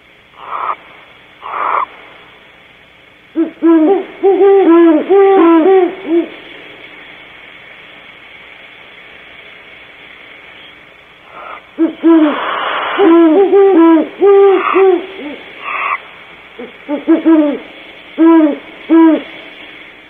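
Great horned owls hooting in three bouts of quick, low, evenly pitched hoots, with short, higher, noisy calls near the start and again in the middle.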